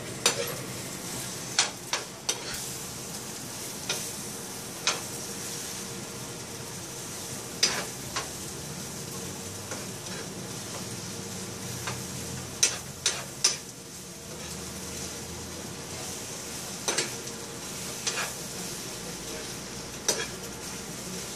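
Beaten eggs frying and sizzling steadily in a skillet while a spoon stirs them, its clicks and scrapes against the pan coming every second or few.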